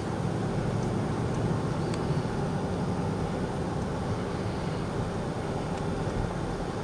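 Steady road and engine noise of a moving car, heard from inside its cabin: an even low rumble with no changes in speed.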